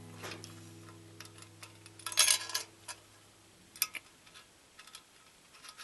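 Small metal parts clicking and scraping as a clamp-type cable connector is worked into the knockout of a metal electrical box. There is a brief loud rattling scrape about two seconds in, and sharp clicks before and after it.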